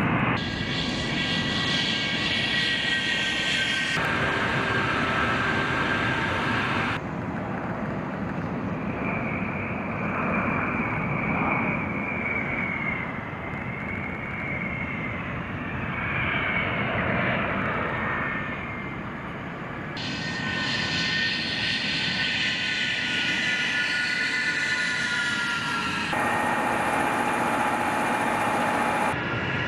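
Tu-22M3 bomber's twin jet engines running as it rolls and taxis on the runway: steady jet noise with a high whine. The sound changes abruptly at several cuts between shots.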